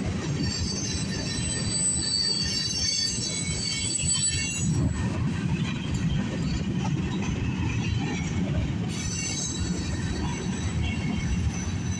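Covered hopper cars of a CSX mixed freight train rolling past close by: the wheels make a steady low rumble on the rails. A thin, high squeal comes and goes over it, strongest in the first few seconds and again near the end.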